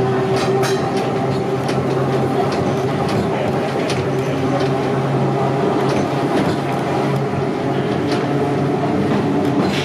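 Vintage electric tramcar running along street track, heard from the driver's cab: a steady motor hum over rolling wheel noise, with scattered clicks from the wheels on the rails.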